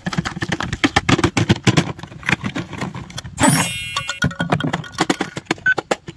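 A rapid, irregular run of clicks and knocks, then a short swish about three and a half seconds in, followed near the end by short electronic beeps at one pitch from a toy piggy bank ATM's keypad.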